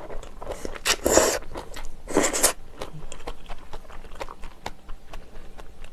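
Close-miked noodle slurping, loud, with two slurps about one and two seconds in, followed by chewing with small wet clicks.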